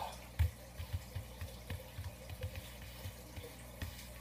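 Playing cards being handled on a tabletop: one sharp knock about half a second in, then light irregular taps and clicks.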